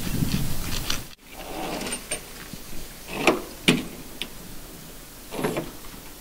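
Handling noise from dinghy rigging being worked: rustling and a low rumble that cut off abruptly about a second in, then a few separate sharp knocks, two close together around the middle and another near the end.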